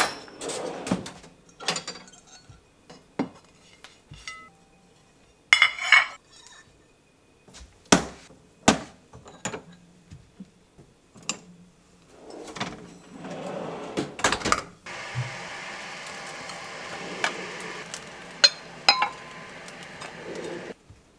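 Ceramic plates and glassware clinking and knocking as they are lifted out of a dishwasher and set down on a fabric drying mat: many separate sharp clinks. Over the last several seconds a steady rushing noise runs under the clinks.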